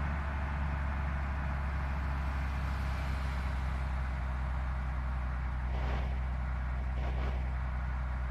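Tour bus running steadily: a low, even engine drone with no horn sounding.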